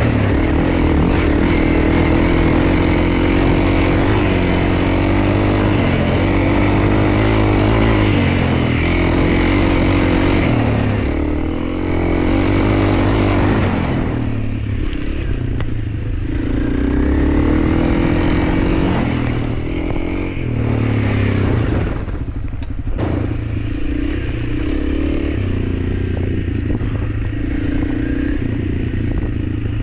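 Honda CRF300L's single-cylinder four-stroke engine running while the bike is ridden, its pitch rising and falling with the throttle and easing off several times partway through.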